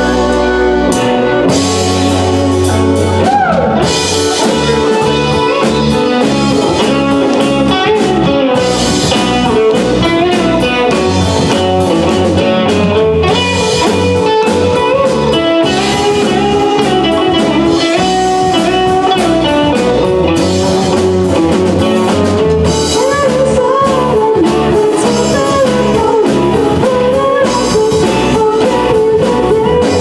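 Live rock band playing an instrumental passage: electric guitar, bass guitar, drum kit and stage piano, with a lead line that bends in pitch over the band.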